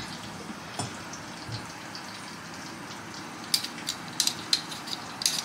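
Steady sizzle of salmon frying in butter in a pan. From about three and a half seconds in, a small knife makes a quick run of short, sharp scrapes as it shaves skin off a red potato.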